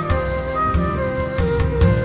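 Background music: a flute-like melody moving step by step over bass and percussion.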